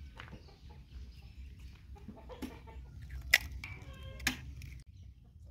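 Eggs cracked one after another against the rim of a tray, several sharp cracks, loudest a little past halfway, with chickens clucking.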